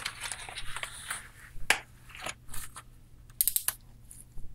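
A Dye i5 paintball goggle and its strap being handled and pulled on over the head: scattered clicks and rustles of plastic and strap, with a quick run of clicks about three and a half seconds in.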